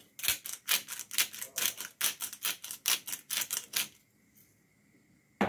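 Handheld pepper grinder being twisted, grinding black pepper: a quick run of gritty clicks, about five a second, that stops after nearly four seconds. A single sharp knock near the end.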